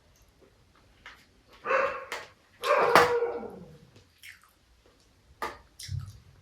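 Dogs barking, with two drawn-out barks about two and three seconds in; the second falls in pitch. A few short sharp clicks come around them.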